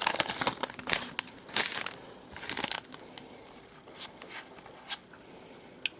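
Crinkling and rustling of a trading-card pack wrapper and cards being handled, dense over the first two or three seconds, then thinning to a few light ticks and rustles.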